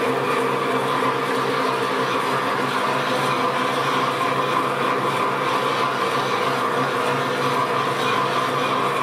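Metal lathe running steadily under slow power feed while a knurling tool rolls a knurl into a spinning brass bar: a constant motor and gear hum with a steady whine that does not change.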